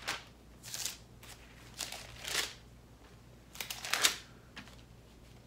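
Thin Bible pages being leafed through by hand: a series of about five soft papery swishes and rustles with pauses between them, as the reader looks for a passage.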